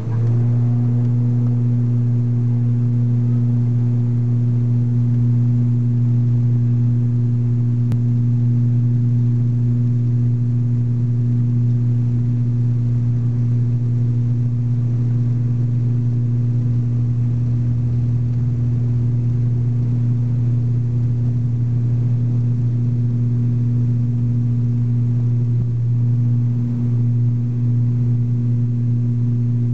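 ATR 72-600 turboprop engine and six-bladed propeller at takeoff power, heard from inside the cabin beside the engine. It is a loud, steady, deep propeller drone with a strong low hum and a higher overtone. It settles at full power in the first second and wavers briefly near the end as the aircraft lifts off.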